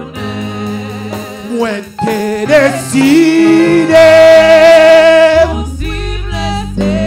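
Gospel singing: a man sings through a microphone over a low instrumental accompaniment, holding one long high note about four seconds in.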